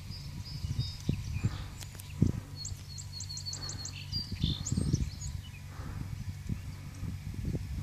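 Small birds chirping: scattered high chirps, then a quick run of about eight high notes a few seconds in, over a steady low rumble with a few soft knocks.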